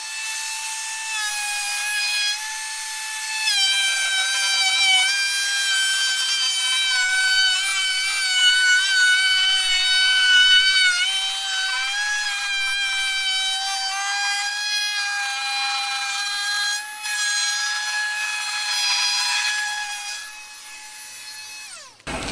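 Cordless trim router with a roundover bit cutting the top edge of a wooden scaffold plank: a steady high whine whose pitch dips and wavers as the bit cuts. It is switched off near the end and winds down.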